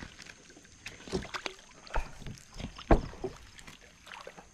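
Plastic kayak hull being knocked and water slapping against it as the boat moves, a few scattered knocks and light splashes with the loudest about three seconds in.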